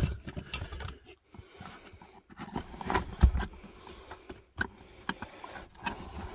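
Steel pliers and channel-lock pliers being handled and slid into a canvas tool bag: scattered clicks and knocks of metal tools, with the loudest knock about three seconds in.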